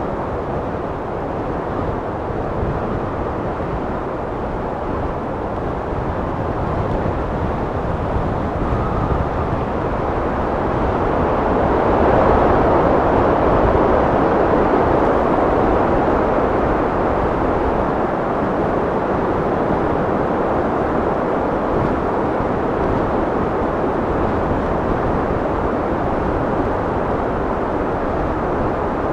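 Steady wind blowing with a low, rushing sound, swelling into a stronger gust about twelve seconds in, then easing slightly.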